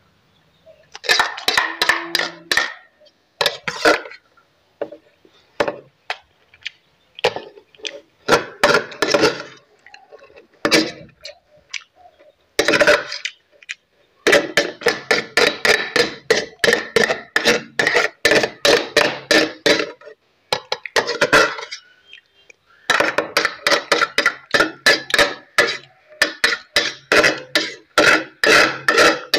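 Metal spoon scraping and clinking on a steel plate while scooping up fried rice: scattered clinks at first, then two long runs of rapid scraping, one in the middle and one towards the end.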